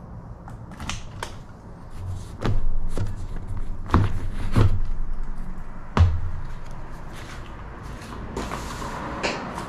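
A motorcycle seat being unlatched and lifted off: a series of knocks and clunks spread over several seconds, the loudest about four to six seconds in, then a short rustle near the end.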